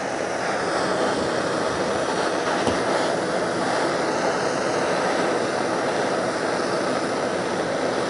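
Bernzomatic torch burning MAPP gas, a steady hissing flame that starts suddenly, heating the blades of pruning shears to sterilise them.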